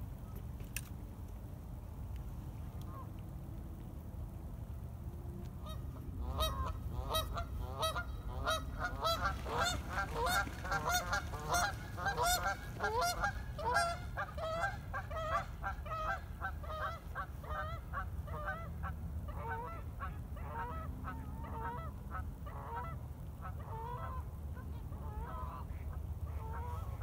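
A flock of large birds calling, many short calls overlapping. The calls start about six seconds in, are thickest in the middle and thin out toward the end, over a steady low rumble.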